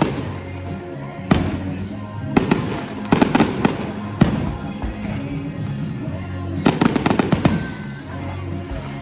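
Fireworks going off in several clusters of sharp bangs and crackles, the loudest volleys about three seconds in and near the end, with music playing steadily underneath.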